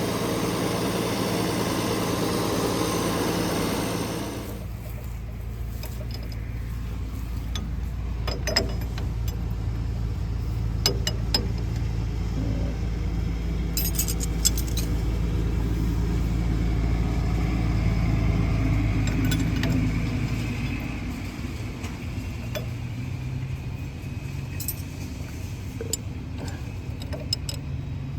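International 1086 tractor's six-cylinder diesel engine running steadily after a restart, its leaking fuel line just replaced with a hydraulic hose. A hiss over the engine cuts out about four seconds in, and light clicks come and go.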